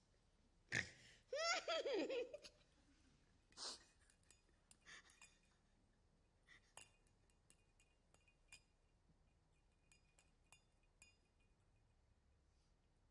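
A woman's brief laugh, falling in pitch, about a second and a half in, followed by scattered faint clinks of ice in a drinking glass.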